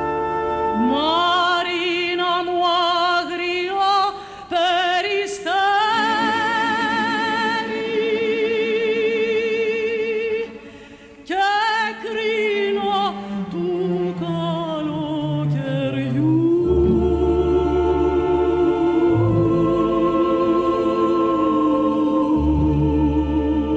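Female singer with a wide vibrato over a symphony orchestra, in a slow Greek art song. Her phrases are broken by a short pause just before the halfway point. Near the end a long held note sounds over the orchestra's low register.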